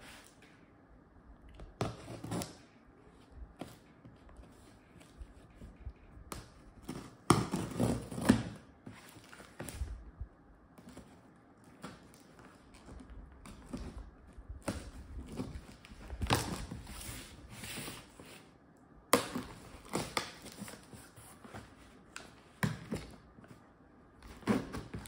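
Cardboard shipping box being unsealed by hand: packing tape cut and torn off, and the cardboard flaps pulled open. Irregular tearing and scraping, with a few sharp knocks as the box is handled.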